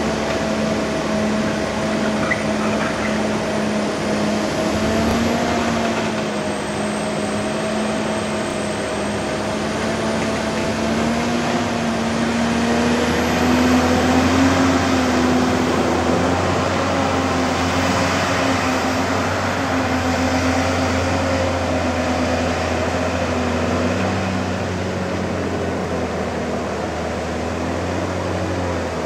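Diesel engine of a loaded forestry forwarder running under load as the machine drives on tracked bogie wheels through soft, wet ground. The engine note wavers and rises slightly about halfway through, when it is at its loudest.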